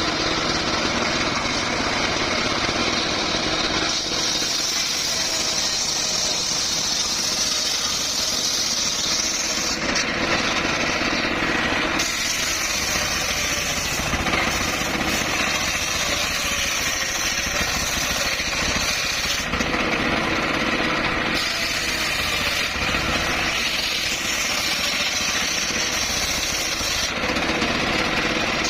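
Circular saw running steadily and cutting wood, its motor droning without pause. The high hiss of the blade changes every few seconds as cuts begin and end.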